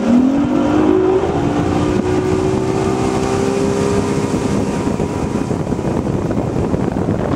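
Bass boat's outboard motor revving up as the boat accelerates. Its pitch climbs over the first second and a half, then holds steady over a constant rushing noise.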